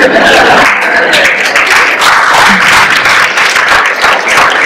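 Audience clapping: dense, steady applause.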